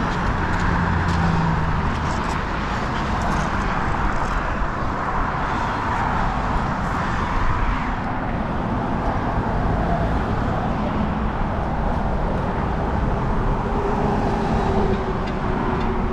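Steady road-traffic noise from cars and trucks on the adjacent highway bridge: a continuous rushing hum with no distinct events.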